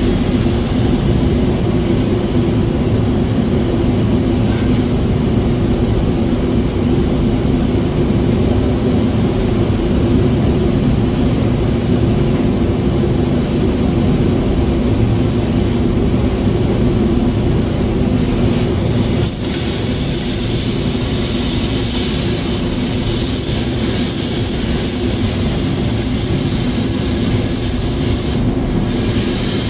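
Steady loud machine noise with a constant low hum, like an engine running; the sound shifts a little and gets brighter about two-thirds of the way in.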